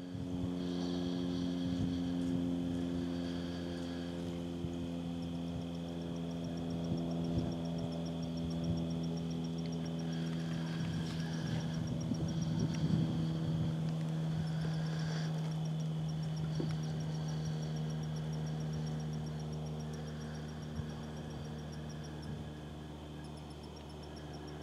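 Steady hum of a distant engine running, holding a stack of even low tones with no change in speed. Faint rapid insect trills come and go over it from about five seconds in.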